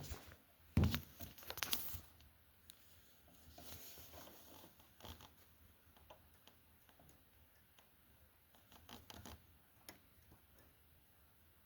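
Small clicks and rustles of hands handling thread and a mini portable sewing machine while threading it, with a louder knock about a second in and a few scattered clicks after.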